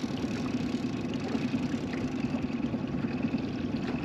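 Boat's outboard motor running steadily at trolling speed, an even low drone.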